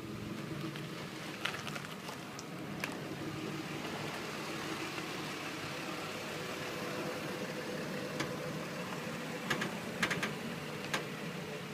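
Nissan Xterra running, with a steady drone and a steady mid-pitched hum that grows plainer after the first few seconds, and a few light ticks. The owner wonders whether the noise is a wheel bearing.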